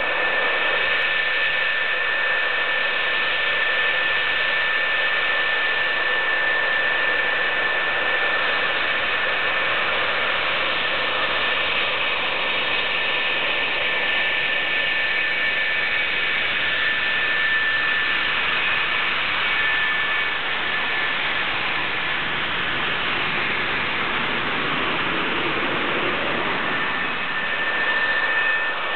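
F-4 Phantom's twin J79 turbojets at taxi power: a steady whine over a hiss of jet noise, with no let-up. Heard through dull, narrow videotape audio.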